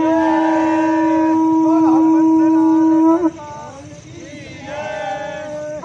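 Conch shell (shankh) blown in one long steady note that breaks off about three seconds in, with voices under it; after a few seconds of quieter voices the conch starts again right at the end.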